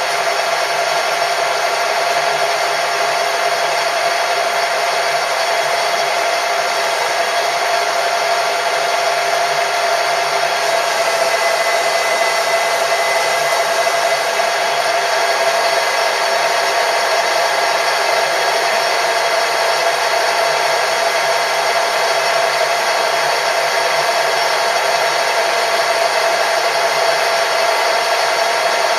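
A machine tool's electric motor running steadily: a constant whine over a hiss, with no change in speed.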